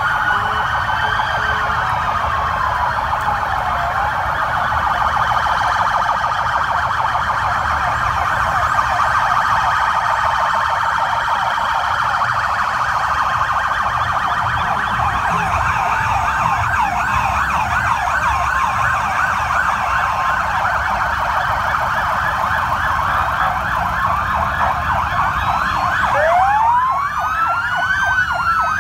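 Many police and official-vehicle sirens wailing and yelping at once as a convoy of vehicles with flashing lightbars passes, over the low rumble of their engines. Near the end, one siren rises and falls in a single long wail.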